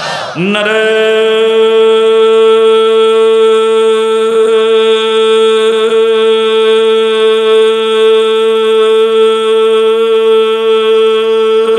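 A man's voice holding one long, steady note for about eleven seconds, sliding up into it at the start and dropping away at the end, as a drawn-out chanted slogan call.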